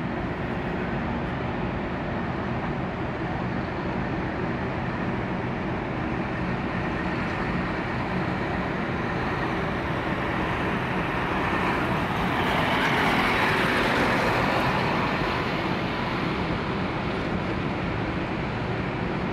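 Engines running steadily with a low hum, and a rush of noise that swells and fades about twelve to fifteen seconds in, as of a vehicle passing.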